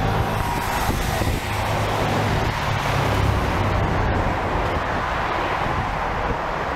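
Sightseeing bus engine running in city traffic, its low hum steady for the first few seconds and then easing, with wind on the microphone.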